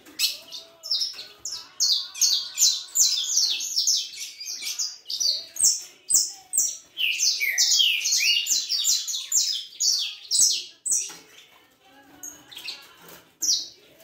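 Saffron finches chirping rapidly: a dense run of short, high chirps several a second, with some lower falling notes in the middle. The chirping thins out near the end.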